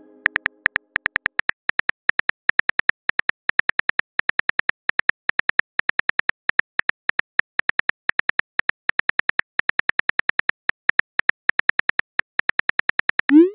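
Simulated phone keyboard clicks from a texting-story app: a rapid, slightly uneven run of short taps, about seven or eight a second, as a message is typed out. Near the end, a short rising swoosh marks the message being sent.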